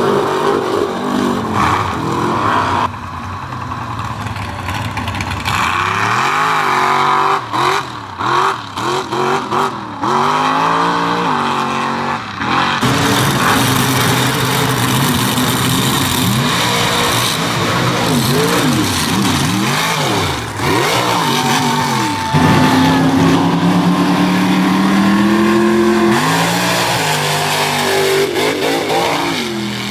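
Big engines of lifted mud trucks revving hard at full throttle, the pitch climbing and dropping over and over as each truck launches and lands. A few brief breaks in the sound come about a quarter of the way in.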